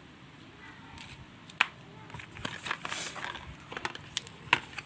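Clear plastic packaging crinkling and rustling as a roll of bicycle bar tape is handled, with two sharp clicks, about a second and a half in and near the end.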